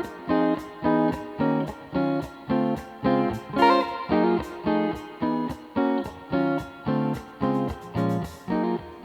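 Music on a plucked string instrument, chords struck in a steady pulse of about two a second.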